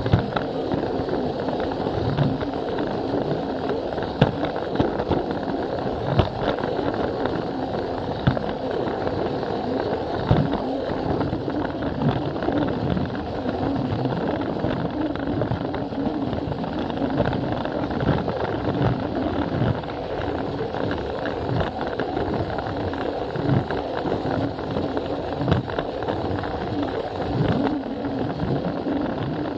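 Battery-powered Plarail toy train running along plastic track, heard from a camera riding on it: a steady whir from the motor and gears, with short knocks every second or two as the wheels cross the track joints.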